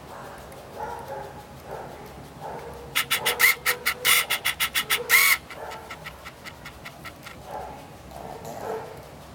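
Shih Tzu snoring softly, a nasal breath roughly every second. About three seconds in, a louder run of rapid sharp clicking pulses lasts about two seconds and is the loudest thing here.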